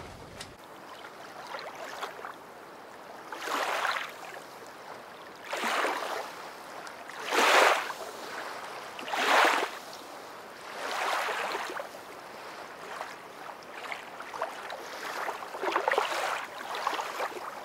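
Water hissing and splashing along a small sailboat's hull as it sails through choppy water, swelling into louder rushes every couple of seconds as waves pass.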